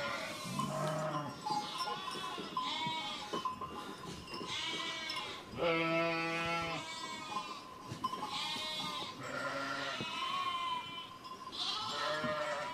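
Lambs bleating, several calls overlapping, one after another with short gaps, the loudest about six seconds in.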